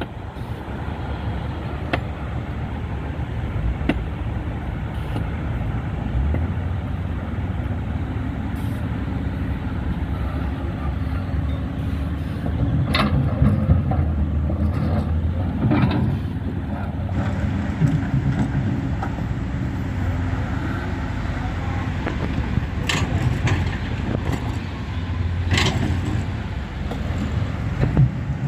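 Heavy diesel engines of dump trucks and an excavator running steadily with a low rumble. Several sharp knocks cut through it, two around the middle and two later on.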